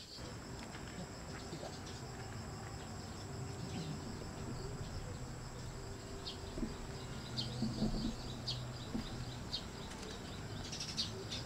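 Outdoor ambience: a steady high insect drone, with scattered short chirps and clicks that come more often around the middle and near the end.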